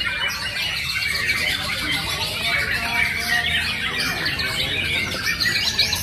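Many caged white-rumped shamas (murai batu) singing at once: a dense, overlapping chorus of quick whistles and chirps.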